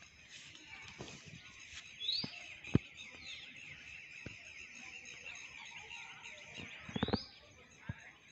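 Rose-ringed parakeets calling over a steady chorus of high, rapid bird chirping, with two loud rising screeches, about two seconds in and about seven seconds in. A single sharp knock just after the first screech is the loudest sound.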